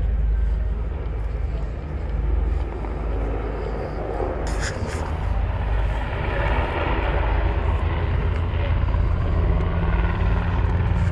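Steady drone of an aircraft engine, swelling through the middle, with a brief sharp click about halfway through.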